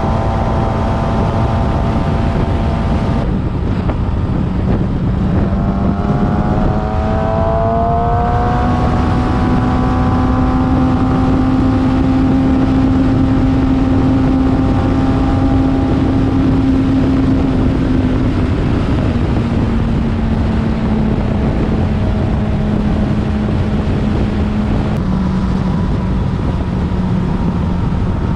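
Motorcycle engine running at road speed over a steady rush of wind and road noise. Its pitch drops briefly near the start, climbs as the bike pulls up through the revs, holds steady, then eases down a little twice near the end.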